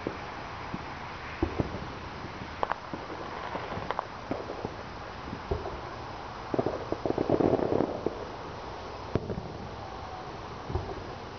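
Distant fireworks going off: scattered single pops and bangs, then a quick run of crackling about two-thirds of the way through, the loudest stretch. A steady hiss runs underneath.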